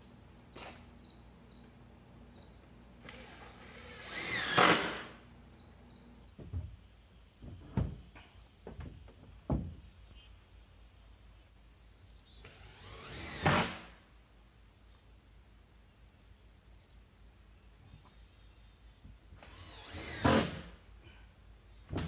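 Cordless drill driving screws into wooden siding boards: three runs of about a second each, the motor whine rising as each screw goes in. A few dull knocks between the first two runs.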